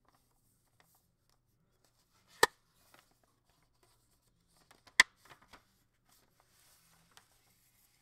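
Paper envelope being handled and opened, its contents slid out: two sharp clicks about two and a half seconds apart, with light paper rustling after the second and again near the end.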